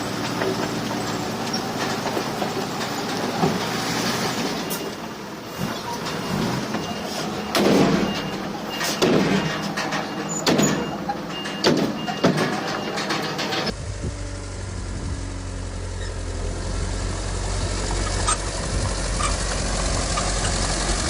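Heavy diesel earthmoving machinery running, with a dump truck's reversing alarm beeping steadily and several loud heavy thuds partway through. About two-thirds of the way in the sound changes abruptly to a steady deep diesel engine rumble.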